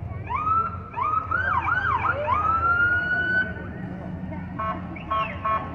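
Police car siren giving a few quick rising whoops and then one long wail, followed near the end by three short horn blasts.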